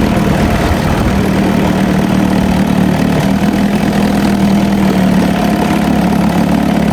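1973 Evinrude 4 hp Yachtwin two-cylinder two-stroke outboard running steadily with its propeller churning the water in a test barrel, its freshly cleaned carburetor letting it run smoothly.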